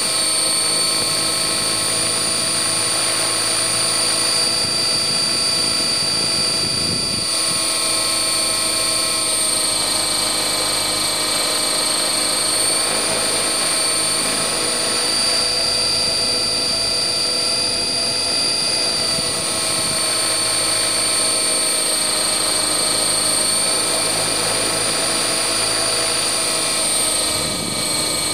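Align T-Rex 600 ESP electric RC helicopter in flight, heard from a camera mounted on the helicopter itself: a steady, high whine made of several tones over the rotor noise, shifting slightly in pitch as the throttle and load change.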